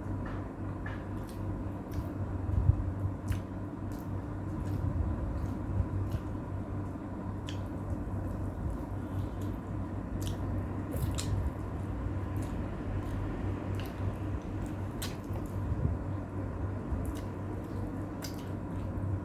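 A person eating: wet chewing and mouth sounds with scattered light clicks, over a steady low hum.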